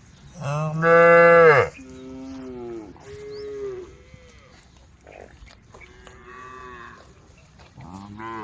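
Cows mooing: one loud, low moo lasting about a second near the start, then several shorter, quieter moos at higher pitches.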